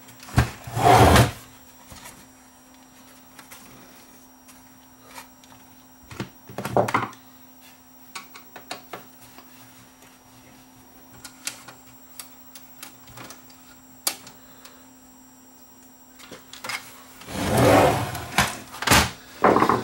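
Clicks, taps and knocks of hands and tools on the plastic case of a Technics RS-M275 cassette deck as its knobs and front panel are worked off, with a few louder, longer bouts of handling noise about a second in, midway and near the end, over a faint steady hum.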